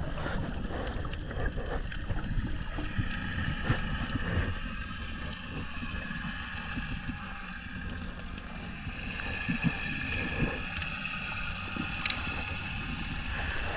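Underwater sound picked up by a submerged camera: a muffled, steady water rumble with scattered small clicks and crackles. Faint high steady tones come in about nine seconds in.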